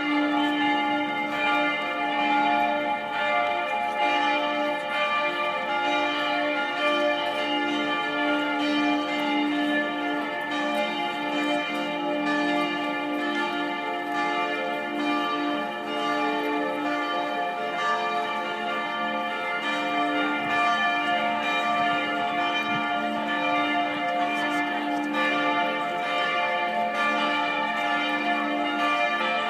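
Several church bells ringing together in a full peal, their strokes overlapping into a continuous, steady mass of bell tones.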